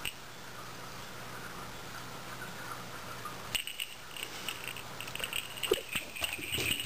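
Small bell on a pom-pom cat toy jingling as a cat bats and grabs at it: one brief jingle at the start, then a busy run of short jingles and clicks from about halfway on.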